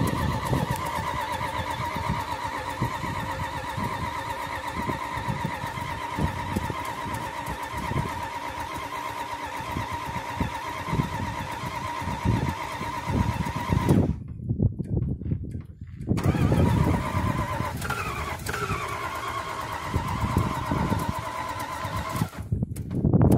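Chrysler 318 V8 running on a cold start through homemade open headers, its uneven exhaust pulses loud and choppy under a steady high whine. The whine drops out for a couple of seconds near the middle and comes back falling in pitch.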